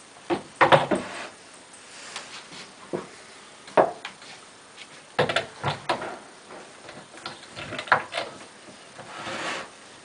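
Beech-wood parts of an Anna spinning wheel knocking and clunking against each other and the table as it is put together by hand: irregular sharp wooden knocks, a cluster about half a second in and more scattered after, with a short rubbing scrape near the end.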